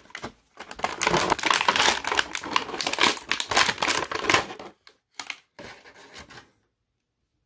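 Thin clear plastic clamshell tray crinkling and crackling as it is flexed and the action figure is pulled out of it, dying down to a few soft clicks about five seconds in.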